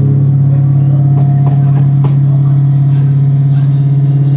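A single low note held through a distorted amplifier, a loud steady drone with its overtones, with a few faint clicks over it.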